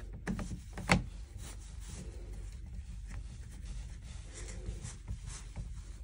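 Faint scraping and a few small clicks of a screwdriver working the screws of a plastic terminal strip in a heating wiring centre, the sharpest click about a second in, over a low steady hum.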